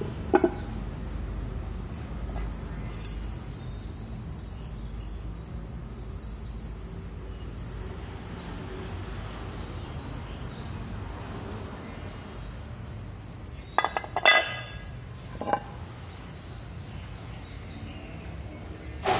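Birds chirping over a steady low background hum. About fourteen seconds in there is a short cluster of sharp knocks and clinks, and another single one comes a second and a half later.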